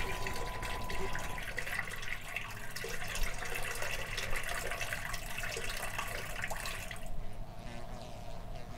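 Steady running, trickling water with small drips. The higher hiss drops away about seven seconds in, leaving a fainter steady sound.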